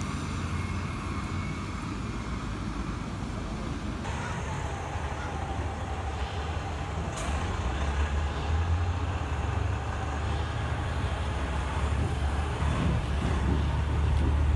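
Steady low rumble of a moving vehicle, with a faint wavering whine through the middle and one sharp click about seven seconds in.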